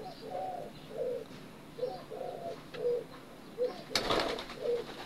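A banera dove cooing: a run of short, low coo notes at about two a second. A brief rustling burst comes about four seconds in.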